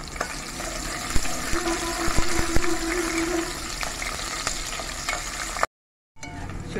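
Sliced onion and green chillies sizzling in hot oil and ghee in an aluminium pressure cooker, stirred with a spoon that clicks against the pot now and then. The sound breaks off for about half a second near the end.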